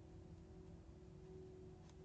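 Near silence: faint room tone with a steady low hum, and one tiny click near the end.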